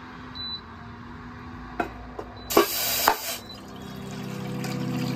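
A short beep from an induction cooktop's control panel and a few clicks, then water poured into a steel saucepan on the cooktop, loudest as the stream first hits the pan. A low steady hum grows louder toward the end.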